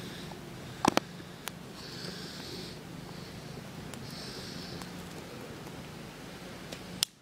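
A person breathing through the nose close to the microphone, drawing about three long hissing breaths. Two sharp clicks come about a second in, and a louder click comes near the end.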